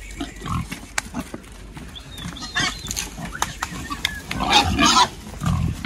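F1 crossbred gilts squealing and grunting in short, scattered bursts, loudest about four and a half seconds in, with a few sharp knocks and low thuds among them.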